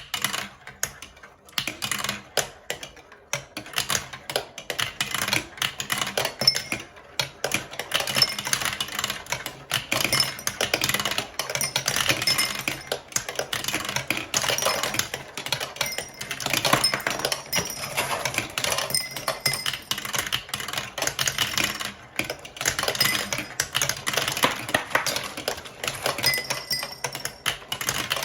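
Many marbles rattling and clicking as they roll down a plastic marble-run track, a dense, continuous clatter.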